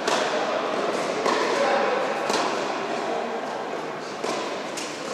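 Tennis ball struck by rackets in an echoing indoor hall: a serve hit near the start, then several more sharp hits about a second apart as the rally goes on, over a murmur of voices.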